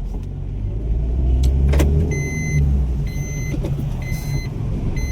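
Maruti Suzuki Swift's engine running with a steady low rumble as the car is set moving. A single click comes a little under two seconds in, and from about two seconds in an electronic warning beep repeats about once a second.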